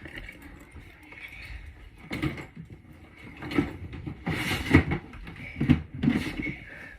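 Pop-it fidget toys being put into a plastic storage bin: rustling and handling with a series of irregular knocks, the loudest about halfway through.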